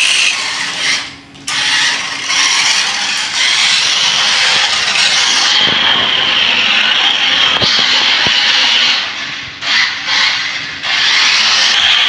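Toy RC car's small electric motor and plastic gears whirring at high pitch as it drives across a concrete floor, dropping away briefly about a second in and again near the end as the car slows.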